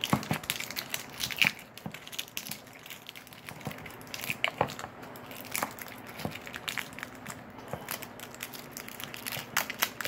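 A small plastic slime tub being handled, its screw lid twisted, giving irregular crackling and clicking with occasional knocks; the sharpest click comes about one and a half seconds in.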